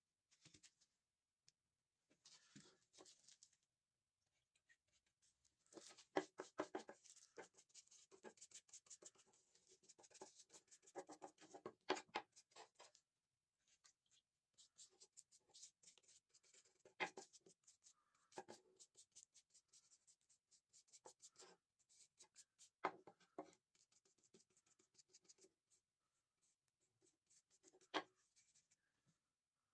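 Paintbrush bristles scratching over a carved walnut knife handle while finish is brushed on: quiet, uneven bursts of brushing, with a few sharper clicks in between.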